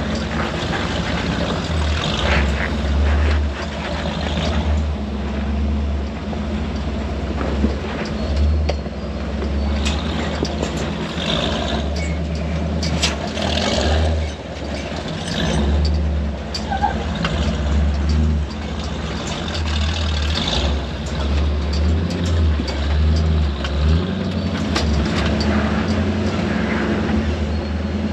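Off-road truck engine running at low revs while crawling over a rocky trail, with scattered knocks and crunches from the tyres and suspension.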